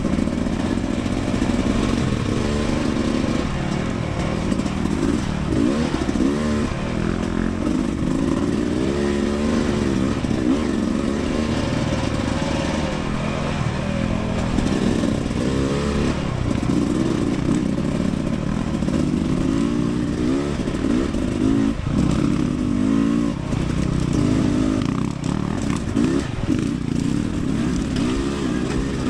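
Dirt bike engine running continuously while being ridden on singletrack trail, its pitch rising and falling as the throttle is opened and closed, with a few sharp knocks.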